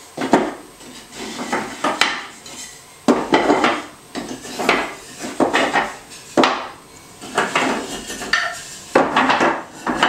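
Wooden top bars of a top bar hive being set down and pushed together, knocking and clattering against each other and the wooden hive body in a string of irregular knocks.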